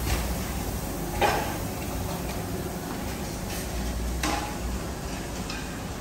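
Kitchen clatter: a few sharp knocks and clicks of pans and utensils, the loudest about a second in and another about four seconds in, over a steady low background rumble.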